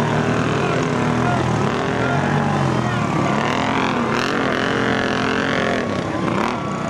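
Several solid-rear-axle ATV engines revving hard as the quads plow through a deep mud pit. Their pitch swings up and down over and over as the throttles are worked and the wheels bog and spin.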